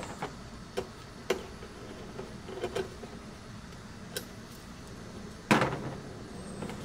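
Small clicks and taps of a screwdriver working the screw terminal on an aluminium-cased DC-DC charger while a cable is fastened to it, then one louder, sharp knock with a short ring about five and a half seconds in as a tool is put down on the table.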